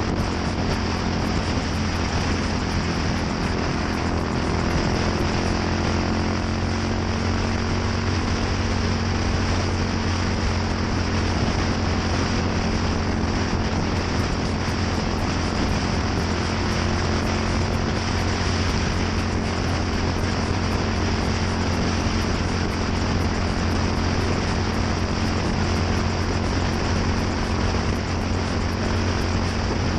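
Yamaha SR400's single-cylinder four-stroke engine running steadily through a NitroHeads aftermarket muffler: a low, even exhaust note that holds constant with no revving.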